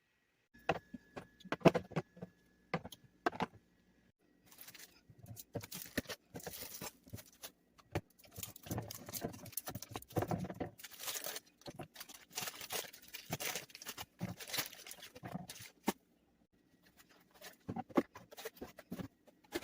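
Plastic containers and food packaging being handled while a refrigerator is loaded: irregular clicks, light knocks and rustling, busiest in the middle with short pauses.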